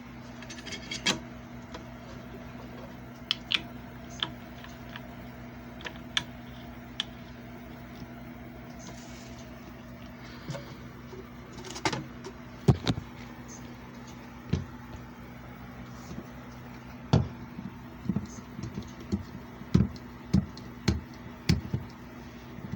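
Steady electric motor hum of a JFJ Easy Pro disc repair machine running, with scattered sharp clicks and knocks of handling, more frequent in the second half.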